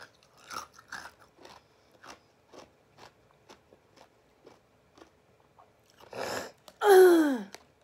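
Ice cubes being crunched between the teeth, about three faint crunches a second. Near the end comes a breath and then a loud vocal sound that slides down in pitch.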